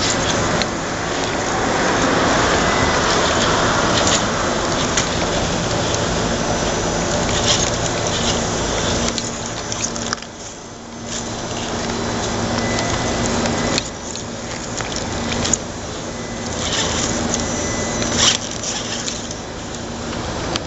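Electric motor and gear drive of an Axial AX10-based RC rock crawler whining steadily as it crawls over rocks, stopping briefly about halfway through and then driving on. Occasional short knocks and scrapes of the tyres and chassis on stone.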